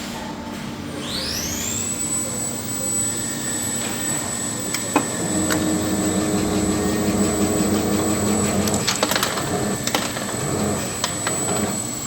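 Electric motor of a mini desktop plastic injection machine spinning up to a steady high whine about a second in, then running, with a lower hum joining midway and a few sharp clicks and knocks.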